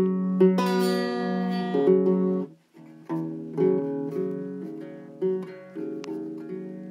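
Background music: a plucked string instrument playing chords, with a brief break about two and a half seconds in.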